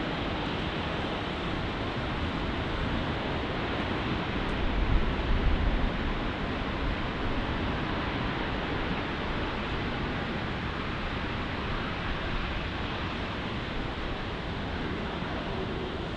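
A Boeing 737's jet engines running steadily as it rolls along a wet runway throwing spray. A deeper rumble swells briefly about five seconds in.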